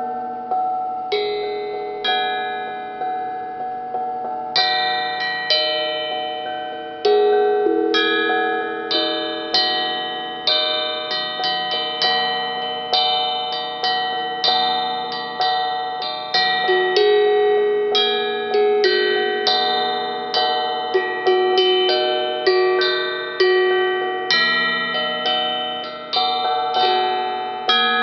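Hamon, an iron folk instrument, played melodically: a run of struck metal notes, each ringing out and fading, sometimes several quick notes a second and sometimes single notes left to ring.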